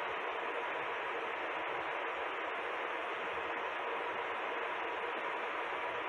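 Steady whirring hiss with a faint hum from a pole-mounted smoke detector tester, its fan blowing test smoke into a ceiling smoke detector while the test waits for the detector to trip.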